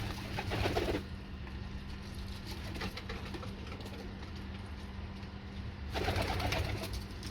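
Nuremberg Lark pigeons cooing in two bouts, one in the first second and another from about six seconds in, over a steady low hum.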